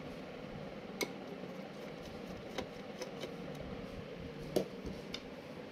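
Scattered light clicks and taps, about five in all, from handling the computer's case and parts while its motherboard is being taken out, over a faint steady hum.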